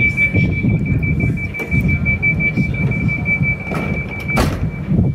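Train door-closing warning: a steady high-pitched beep sounds until a loud thud about four seconds in as the sliding doors shut, after which the beep goes on more faintly. A low rumble from the standing train runs underneath.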